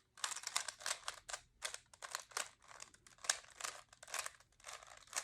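Rubik's Cube faces being turned by hand in quick succession: a rapid, irregular run of short plastic clicks and clatters as the layers twist.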